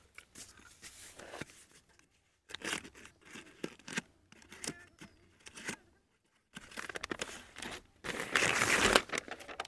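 Paper wrapping being torn and crinkled off a new hand pump cylinder, in short on-and-off rustles, with the loudest stretch of tearing near the end.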